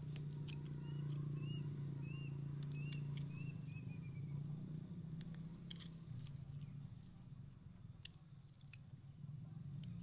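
Sharp, scattered clicks and snips of a metal hand tool working at a bonsai tamarind trunk and its training wire, the loudest about eight seconds in. In the first half, a small bird gives a run of about six short chirps, and a low steady hum runs underneath.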